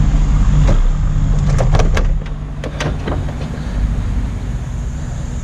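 Scattered sharp clicks and knocks of hands working plastic connectors and parts in a car's engine bay, over a steady low hum.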